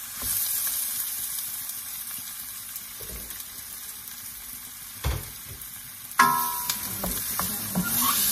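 Raw pork cubes sizzling in hot oil in a nonstick wok. There is a knock about five seconds in, then a sudden clank with a brief ring about six seconds in, after which the pork is stirred with a wooden spoon and the sizzling grows livelier.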